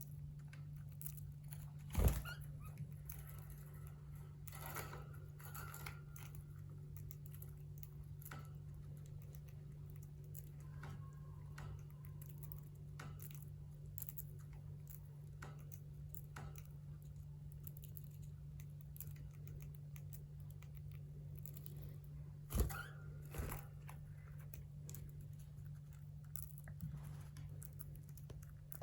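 Lovebirds eating, with many small crunching clicks as their beaks crack seed. A steady low hum runs underneath, and two louder knocks come about two seconds in and again a little past the middle.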